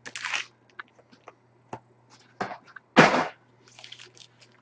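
Trading card packs and wrappers being handled: short crinkling rustles, the loudest about three seconds in, among small clicks and taps of cards.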